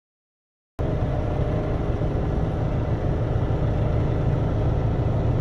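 Heavy diesel engine of farm harvest machinery running steadily at constant speed, cutting in abruptly just under a second in.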